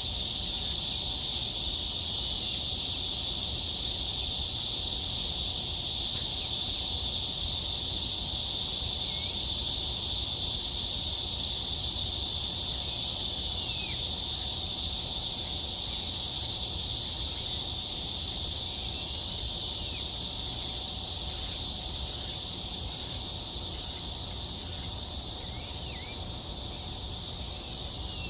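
Cicadas singing in a steady, high-pitched droning chorus that eases off slightly in the last third.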